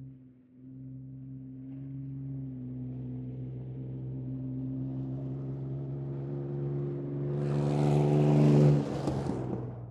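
2004 Ford Explorer's engine running with a steady pitched hum that grows gradually louder. About seven seconds in, a loud rushing hiss joins it and peaks, then both drop away sharply about two seconds later.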